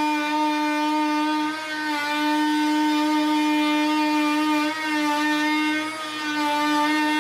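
Rockwell Sonicrafter 4.2 amp oscillating multi-tool running steadily as it cuts through drywall: a high, even buzz that dips briefly in level and pitch three times as the blade is pressed into the board.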